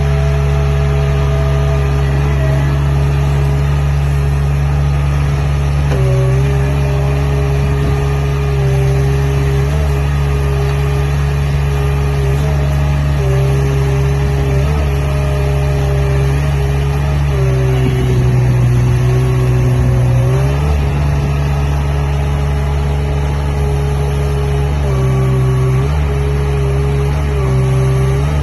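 Mini track loader's 25 hp Perkins diesel engine running steadily at high speed. Its note dips and recovers several times, once for a few seconds, as the engine is briefly loaded.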